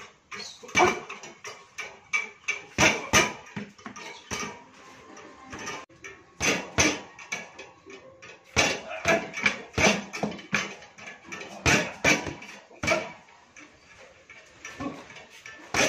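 Boxing-glove punches striking a homemade cobra bag, a reflex ball on a coil spring atop a steel pole, with a metallic clatter from the spring and pole. The hits come irregularly, singly and in quick pairs, with short pauses between flurries.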